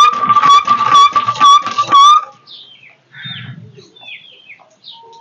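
Hand pump being worked: a loud, steady squeal with a slight wobble and a regular knock about three times a second as the handle goes up and down, stopping after about two seconds. Then small birds chirping.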